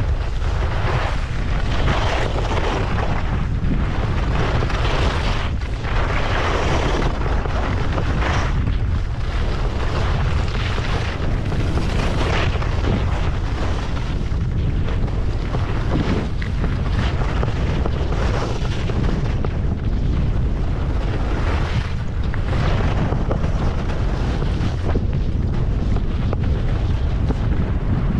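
Wind buffeting the microphone with a steady low rumble, over the hiss and scrape of skis on firm snow that swells and fades about every two seconds as the skier turns.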